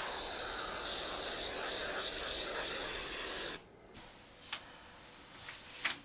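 A can of expanding spray foam hissing steadily as it is sprayed to seal holes, cutting off abruptly about three and a half seconds in. A faint steady hum and a few light clicks follow.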